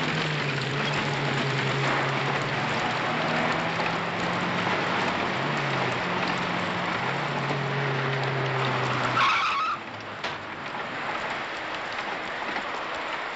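A car engine running at a steady low pitch that steps up and down a few times, over loud road noise. About nine seconds in there is a brief squeal, then the engine sound drops away and a quieter hiss remains.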